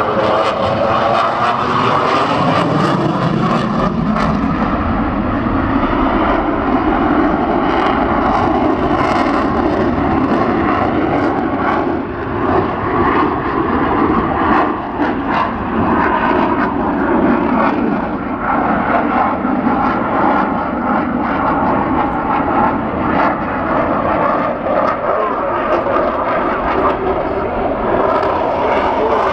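Eurofighter Typhoon's twin jet engines at display power: a loud jet noise whose tones glide upward over the first few seconds as the fighter passes, then a steady, wavering rush.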